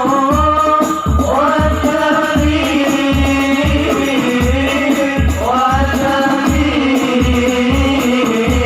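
Sholawat devotional song: a voice holding long, sliding notes over a steady frame-drum beat of about two low strokes a second.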